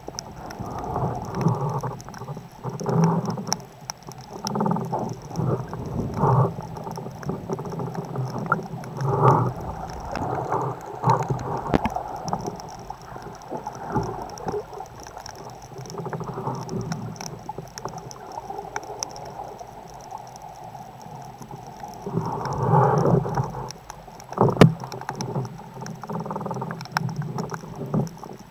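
Muffled underwater sound heard through a camera's waterproof housing. Water swirls and sloshes against the case in irregular surges, with scattered sharp clicks. A stronger surge comes about 22 seconds in, followed by a sharp click.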